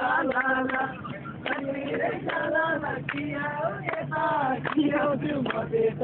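Music with a voice singing a melodic line in phrases, with frequent sharp clicks underneath.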